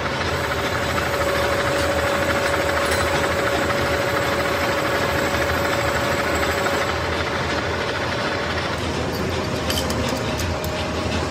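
Metal lathe running and cutting the flange of a tractor rear axle half shaft: a dense, steady machine noise with a clear steady tone from the cut that fades about seven seconds in. A few sharp clicks come near the end.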